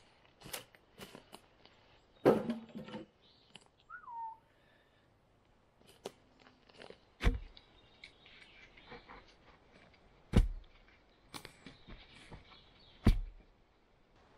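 Wooden logs knocking together as they are set down on a pile, with one loud clattering knock about two seconds in. A bird gives a single falling call, then come three heavy thuds about three seconds apart as a wooden post is thumped down into its hole.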